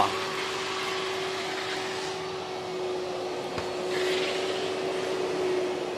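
Carpet extraction machine's vacuum motor running steadily, a continuous suction noise with one held tone, drawing rinse water back out of the carpet.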